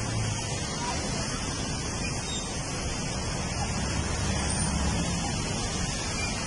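Steady hiss of falling rain, with a low rumble of road traffic underneath.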